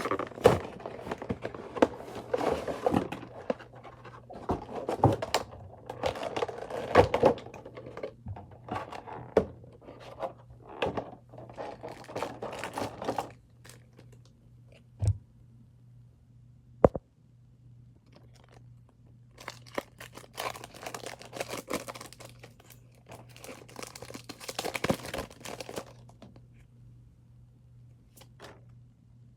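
Packaging of a Pokémon trading card Battle Box being torn open and crinkled, rustling on and off, with two sharp knocks in the quieter middle stretch. A steady low hum runs underneath.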